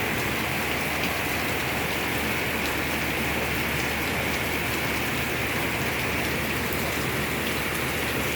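Heavy rain falling steadily, a dense even hiss with faint scattered drop ticks.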